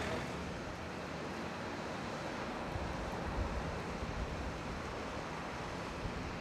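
Steady outdoor background noise, a constant hiss with a low rumble that swells briefly about three seconds in.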